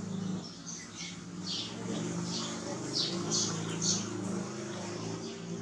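Short high-pitched chirps repeating irregularly, over faint low voices in the background.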